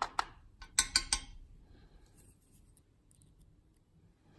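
A few sharp metallic clicks right at the start, then a quick cluster of louder clicks and clinks about a second in, followed by faint handling noise: small lock pins and tools being picked up and set down while a padlock is taken apart.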